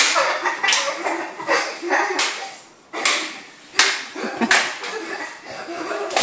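Toy swords clacking against each other in a mock sword fight: a string of sharp, irregular knocks, with a short lull about two and a half seconds in.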